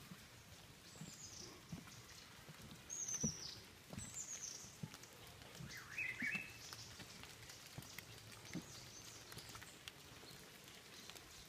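Footsteps on a wet wooden boardwalk, dull knocks about one every 0.7 seconds, with forest birds giving short falling chirps several times, mostly in the first half.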